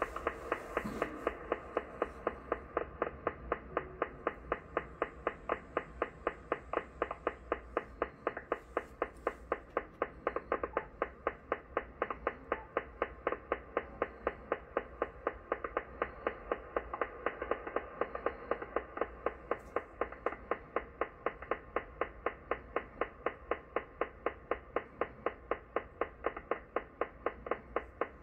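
Shortwave radar signal heard through the speaker of a Yaesu FTdx10 in USB mode near 19.45 MHz: a rapid, even train of clicks, about five a second, over a faint band hiss.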